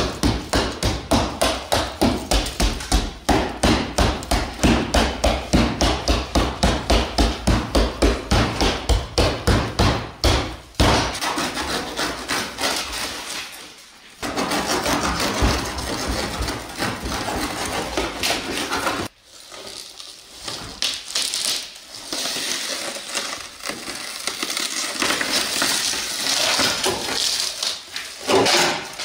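A hammer striking a car's laminated windscreen in rapid repeated blows, about three a second, for roughly the first ten seconds. Then the shattered glass crackles and crunches as the crazed windscreen is worked and peeled out of its frame.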